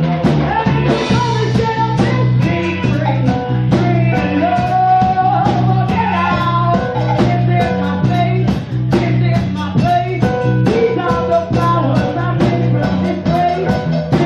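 Live rock band playing: a woman singing into a microphone over electric guitar and a drum kit, with a steady bass line and regular drum beats.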